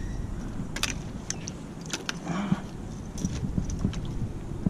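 Handling noise from a landing net and fishing gear on a kayak: a few sharp clicks and light knocks over a steady low rumble, with one short muffled sound about halfway.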